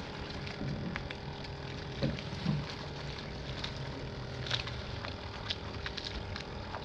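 Boat engine idling with a steady low hum, with scattered small clicks and knocks.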